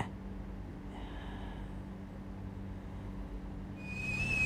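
Quiet kitchen background: a faint steady low hum. A thin steady whistle-like tone begins near the end.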